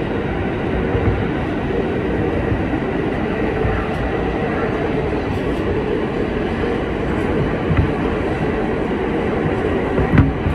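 Kawasaki R160B subway train running at speed: a steady rumble of wheels on rail, with a couple of sharp knocks near the end.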